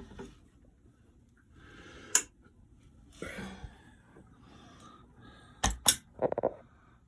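Handling noises of a lead being connected to an oil pressure switch: a sharp click about two seconds in, then two sharp clicks in quick succession near the end followed by a brief rattle, with faint breathing.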